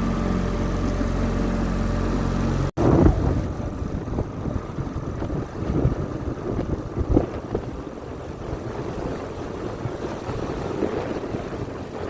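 Outboard motor on a 14-foot johnboat running steadily. About three seconds in the sound breaks off abruptly, and the engine tone gives way to irregular wind rumble on the microphone and water noise.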